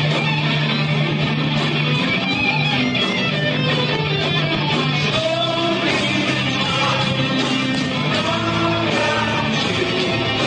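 Heavy metal band playing live: electric guitar lines with bending notes over a steady bass and drums.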